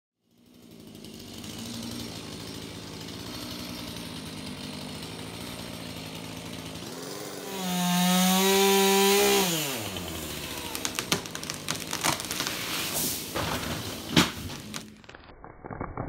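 Husqvarna chainsaw running steadily, then revved to full throttle for about two seconds from around seven seconds in, its pitch falling back as the throttle is released. After that comes a quick run of sharp cracks and knocks, the loudest about fourteen seconds in.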